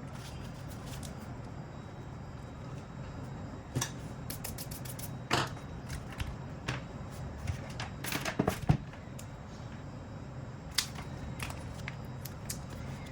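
Scattered clicks and taps of small hard objects being handled, most likely phones and phone parts, with a quick cluster of louder clicks a little past the middle, over a steady low hum.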